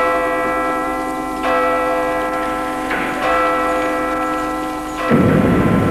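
Bells ringing: a struck bell tone carries on, and fresh strokes come about every one and a half to two seconds, each holding a cluster of steady ringing tones. A noisy rushing sound joins near the end.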